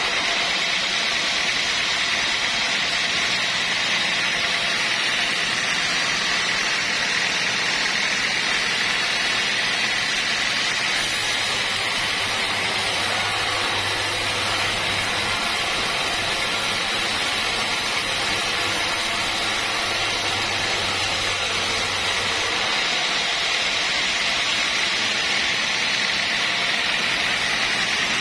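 Steady, loud machine noise of a sawmill running, with an even hiss strongest in the upper middle and a low hum that shifts abruptly twice.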